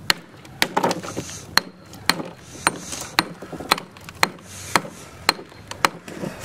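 Steel rock pick striking lumps of copper-bearing hard rock ore held in a plastic tub, about two sharp blows a second, breaking oversize ore down by hand in place of a jaw crusher.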